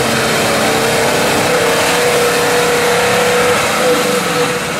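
Nissan Patrol engine revving hard under load as the 4x4 pushes through deep mud and water, with mud and water splashing. The engine note holds high and climbs a little, then eases off near the end.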